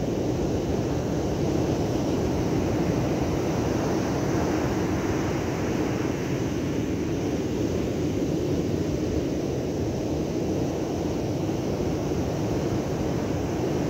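Steady roar of rough surf breaking on the beach, with wind buffeting the microphone.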